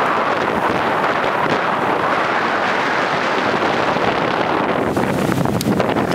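Strong wind rushing over the microphone, mixed with waves washing onto a sandy shore; a steady, loud noise with no let-up.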